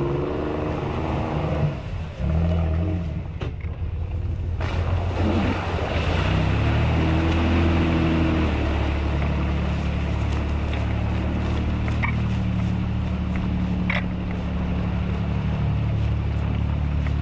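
Engine of a modified off-road 4x4 revving up and down, then pulling hard and steady under load as the vehicle works through deep mud and water, with the churn of the tyres in the mud underneath.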